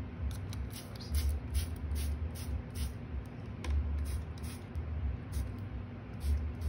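Hand-pumped plastic spray bottle misting a moss-and-plant terrarium: a quick run of short hissing sprays, about two a second at first and then more spaced out, over a low rumble of handling.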